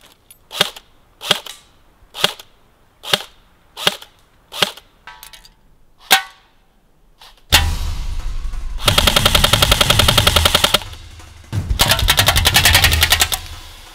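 ICS-22 M4 RIS electric airsoft rifle (AEG) firing: about seven single shots spaced well apart, then two rapid full-auto bursts of about two seconds each. A loud steady background sound comes in about halfway through, under the bursts.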